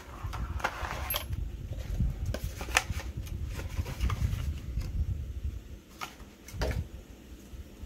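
Paper instruction sheet and cardboard box being handled: rustling with a few sharp crinkles and taps, over a low rumble.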